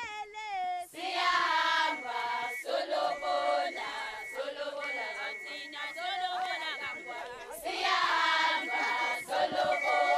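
A large chorus of girls' and women's voices singing and chanting together in a traditional Swazi reed dance song, with high notes held about a second at a time. It swells louder about a second in and again near the end.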